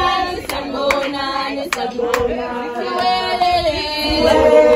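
Several voices singing a song in long held notes, with sharp hand claps.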